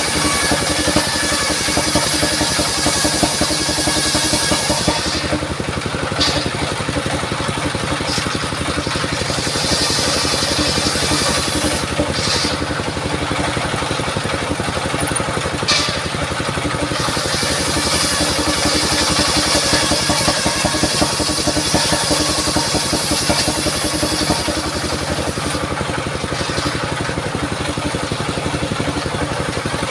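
Portable circular sawmill running steadily under load as it cuts mahogany, the engine droning without a break. The high cutting noise of the blade comes and goes in strength every few seconds as it works through the wood.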